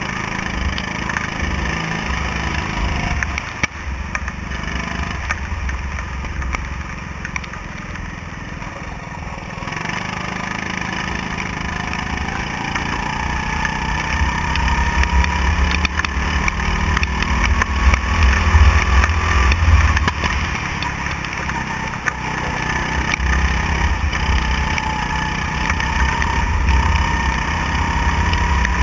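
Go-kart engine running hard from on board, its pitch dropping as the driver lifts about three and a half seconds in, then climbing steadily under acceleration and easing and picking up again near the end. A heavy low rumble of wind on the microphone runs underneath.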